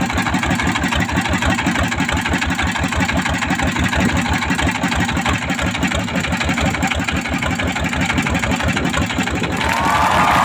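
A boat engine idling with a steady, rapid pulsing beat. Near the end a louder, higher whirring sound joins in.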